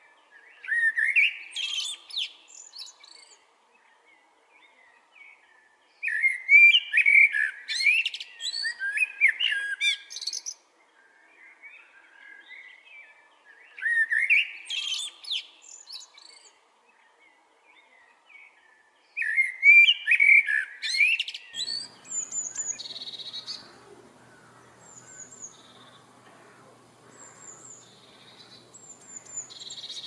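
Male common blackbird singing in four phrases of a few seconds each, with the pitch sliding up and down and pauses between them. After about twenty seconds the song stops, and short, thin, high blue tit notes follow over a light hiss.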